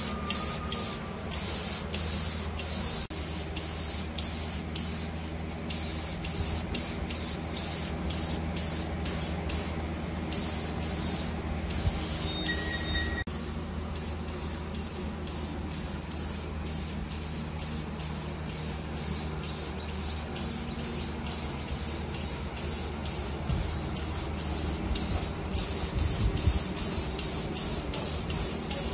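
Paint being sprayed onto sheet-metal engine parts in many short bursts of hiss with brief gaps between them, over a steady low hum.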